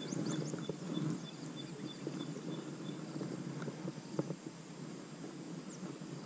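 Quiet open-air ambience on a small fishing boat: a steady low rumble, with a faint high ticking about three times a second for the first three seconds and a small sharp click about four seconds in.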